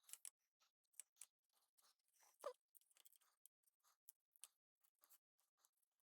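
Faint, irregular small scrapes and clicks of hand work on a subwoofer speaker driver as parts and the rotted foam surround are worked loose, one a little louder about two and a half seconds in.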